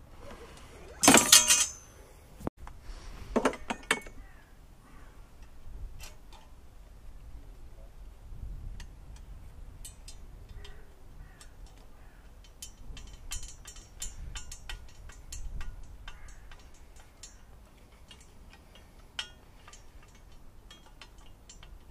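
Hand tools working on a lawnmower's metal handlebar to free its control cable: scattered small metal clicks and clinks of pliers and a screwdriver, with a louder burst of handling noise about a second in.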